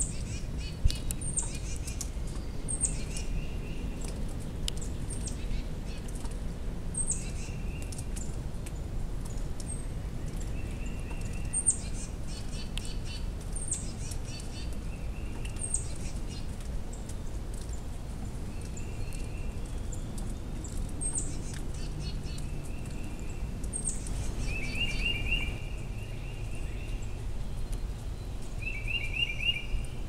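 Small songbirds calling outdoors: short high chirps that sweep downward, repeated every second or two, and short trilled phrases now and then, over a steady low rumble.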